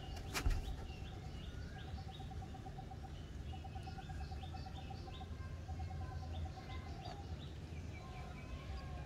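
Outdoor ambience: birds chirping with many short repeated calls and several runs of a fast pulsing call, over a steady low rumble. A faint knock comes just after the start.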